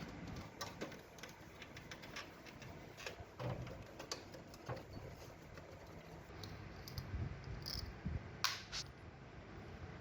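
Scattered light clicks and taps of small hard parts being handled, with two sharper clicks about eight and a half seconds in.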